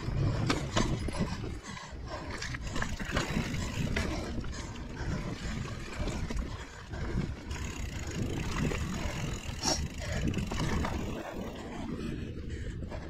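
Mountain bike riding over dirt singletrack, heard from a chest-mounted action camera: a continuous uneven rumble of tyres and wind on the microphone, with scattered knocks and rattles from the bike over bumps.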